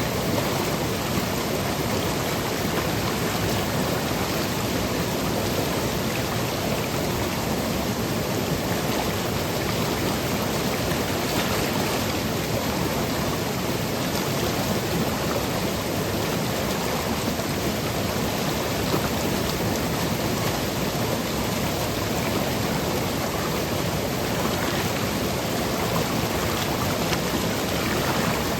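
Seasonal stream flowing and cascading over rocks and pebbles: a steady, even rush of water.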